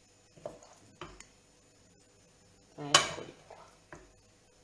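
A cooking spoon knocking against a frying pan and a plate as sauced gnocchi are scooped out and served: a few light knocks, then one louder clank that rings briefly about three seconds in, followed by two softer taps.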